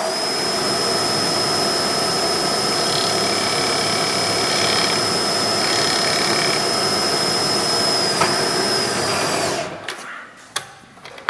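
Milling machine spindle running a router chamfer bit, a steady motor sound with a high whine, while the bit cuts a chamfer along the edge of the workpiece partway through. The motor is switched off near the end and spins down.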